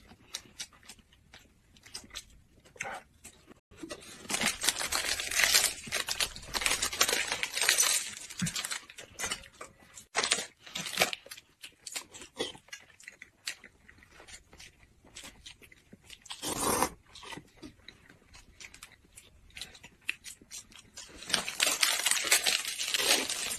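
Close-up eating sounds: chewing with scattered small clicks. A plastic snack wrapper crinkles in stretches and is torn open near the end.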